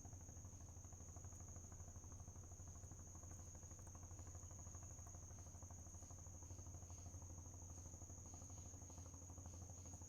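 Faint, steady high-pitched chorus of night insects such as crickets, with a low steady hum underneath.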